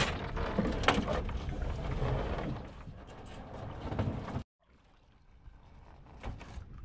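Floodwater splashing and sloshing as people wade and work in deep water. It cuts off suddenly about four and a half seconds in, leaving near silence until faint noise returns near the end.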